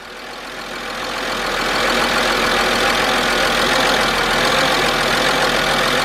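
Mercedes-Benz E320's 3.2-litre straight-six engine idling, growing louder over the first couple of seconds and then running steadily. It is newly started after a replaced camshaft position sensor and after nearly a year of standing, and it runs a bit rough with a little hesitation.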